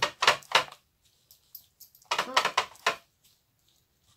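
Sharp plastic and metal clicks and taps from a small watercolour pan being handled against a metal palette tin. They come in two short clusters, one at the start and one about two seconds in.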